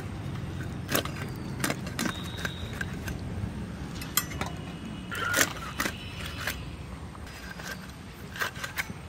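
A rohu fish being cut into steaks on a boti, the blade crunching through flesh and backbone in scattered sharp cracks and clicks, over a low steady hum.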